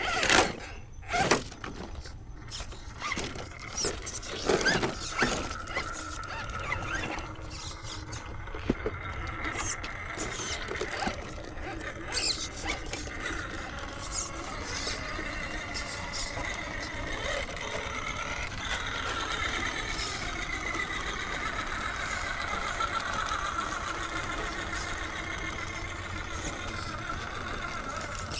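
Electric drivetrains of 1/10-scale Vanquish RC rock crawlers whining as they crawl, a steady high whine that grows stronger in the second half. In the first few seconds there are scattered clicks and knocks of tires and chassis on rock.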